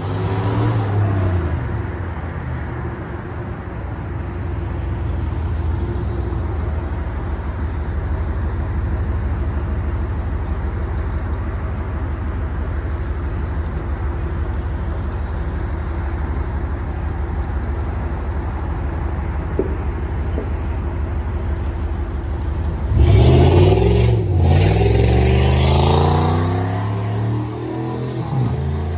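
Dodge Durango running with its muffler deleted and a gutted catalytic converter, so the exhaust is near straight-piped: a steady engine drone. About 23 s in, a louder burst of revving follows, with the pitch gliding up and down for a few seconds before it settles.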